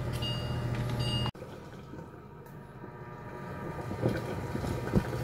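Steady low hum with a faint high whine from a pot of water heating on a glass-top electric cooktop, cut off suddenly about a second in. After that comes quieter room sound with a couple of light knocks near the end.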